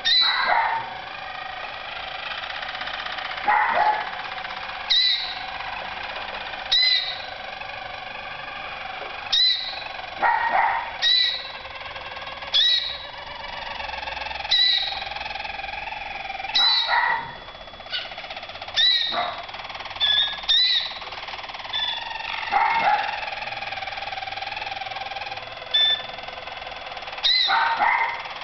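Harzer Roller canaries singing a continuous rolling song, broken every second or two by loud, short, sharp sounds.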